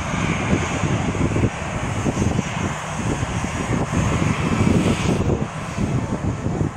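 Twin jet engines of a Batik Air Airbus A320 running as the airliner rolls along the runway: a loud, steady rush of engine noise with a heavy, unsteady low rumble.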